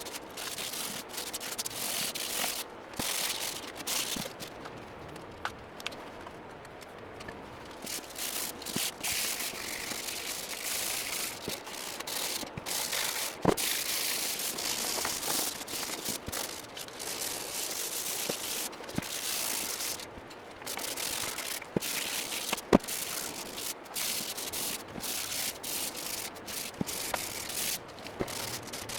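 Sandpaper rubbing over the typewriter's metal body in repeated strokes with short pauses, taking off rust and old paint. Two sharp knocks stand out, about halfway through and about three quarters of the way in.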